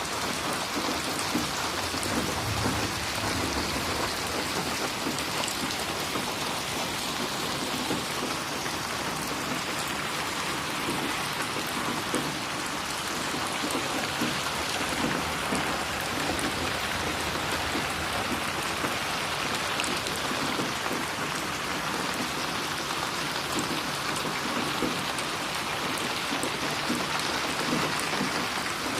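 Steady rain falling on a surface: an even hiss with the patter of drops.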